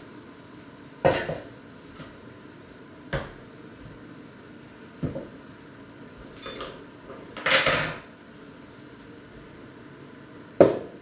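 A lidded steel pot on the boil clinking and knocking irregularly, about six sharp clinks in eleven seconds, with a short rattle a little past the middle and a loud clink near the end.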